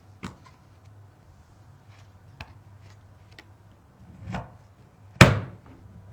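Computer parts being handled and fitted: scattered light clicks and taps, a soft thud about four seconds in, and a sharper knock a little after five seconds, over a faint low hum.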